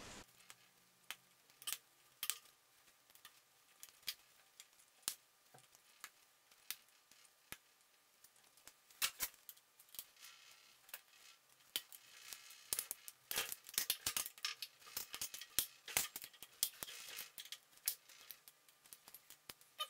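Light metallic clicks and ticks of a hand tool working the screws on the housing of a VDF V630 lathe's quick-select feed gearbox as it is being unbolted. Sparse single clicks at first, then quick clusters of clicks through the second half.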